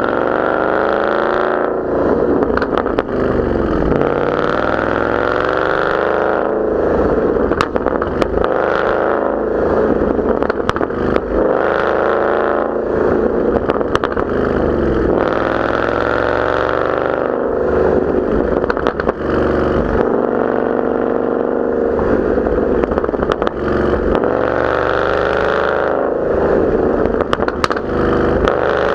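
2014 Mustang GT's 5.0-litre V8 revved up and down over and over through a Borla ATAK cat-back exhaust with an off-road H-pipe, the pitch climbing and falling every few seconds. Sharp exhaust crackles and pops come through on the way down.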